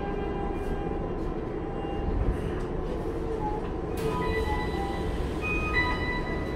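Inside a Tokyu 5050 series subway car standing at a station platform: a steady low rumble and hum from the stopped train. A sharp click comes about four seconds in, followed by a few short steady tones.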